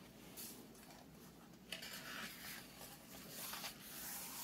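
Paper page of a hardcover picture book being turned by hand, with soft rustling and sliding swishes coming several times.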